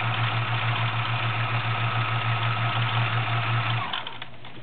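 Kenmore 148.1937 sewing machine running a zigzag stitch: a steady motor hum with a fast, even stitching beat. It stops about four seconds in.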